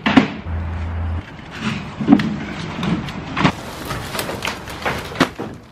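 Rotten wooden pallets and loose wood being dragged across a box truck's metal bed and dropped onto a debris pile: a string of sharp knocks and clatters of wood on wood and metal.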